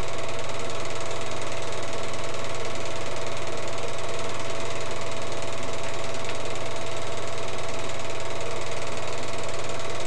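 Home-movie film projector running: a steady mechanical whir with a fast, even clatter and a constant hum.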